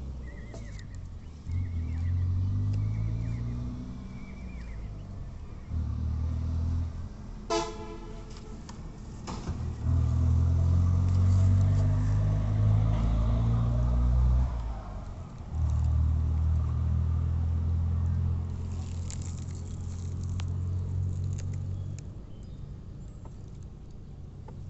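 Engine hum of passing motor vehicles, swelling and fading in several long passes, with a brief toot about seven and a half seconds in.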